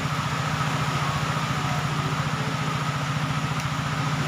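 An engine running steadily at an even, fast-pulsing idle.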